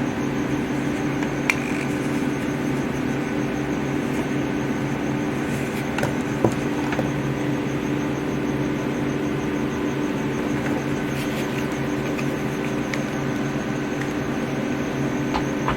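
Steady machine hum with a faint high whine, typical of running desktop computer fans, with a few faint clicks.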